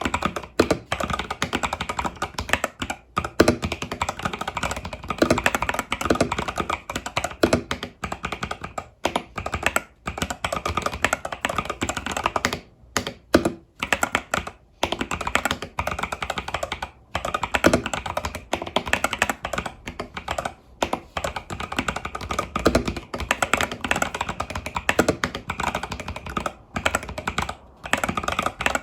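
Continuous fast typing on an Epomaker TH80 Pro mechanical keyboard with Epomaker Budgerigar tactile switches and stock keycaps, a dense run of key clacks with a few short pauses.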